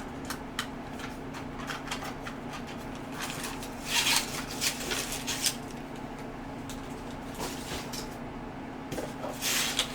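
Packaging being handled during an unboxing: scattered light clicks and knocks with two louder rustles, about four seconds in and near the end, over a steady low hum.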